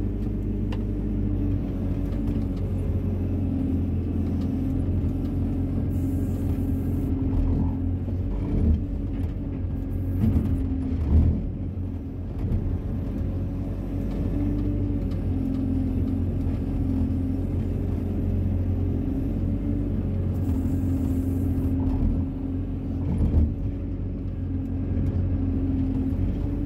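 Wheeled excavator's diesel engine running steadily under digging load, heard from the operator's cab, with a wavering hum from the machine. A few sharp knocks from the bucket in the trench stand out about a third of the way in and again near the end.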